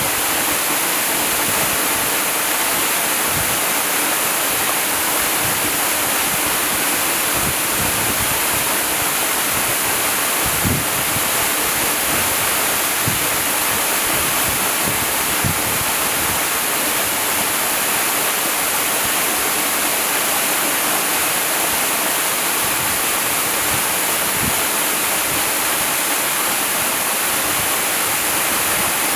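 Waterfall: a steady, dense rush of falling water with no let-up.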